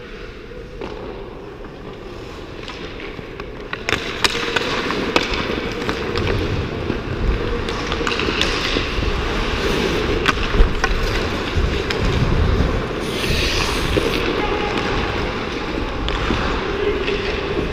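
Ice hockey skates gliding and scraping on ice, starting about four seconds in, with scattered sharp clicks of sticks and pucks. There is a brief harsher hissing scrape about thirteen seconds in.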